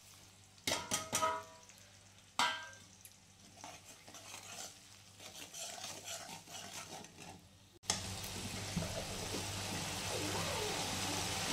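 Steel spatula clinking against the bowl and the metal kadhai as masala powders are tipped into frying onions, a few sharp clinks in the first three seconds. Then scraping as the spices are stirred, and from about eight seconds in a steady sizzle of the masala frying in oil.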